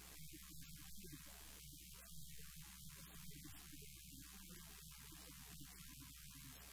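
Steady electrical mains hum under a faint, muffled woman's voice talking.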